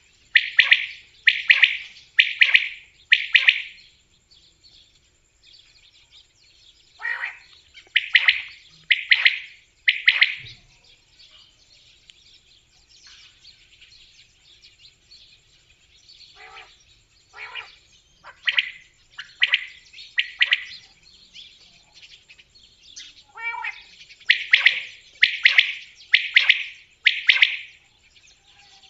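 Common quail singing: four bouts of its sharp, clipped song phrases, three or four phrases to a bout about a second apart. Each bout is led by a fainter, lower note.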